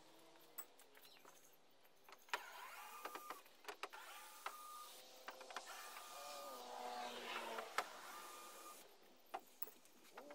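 Electric drill backing screws out of a canoe's wooden gunwales: the motor's faint whine comes in short runs that glide up and down in pitch, with scattered clicks and knocks between them.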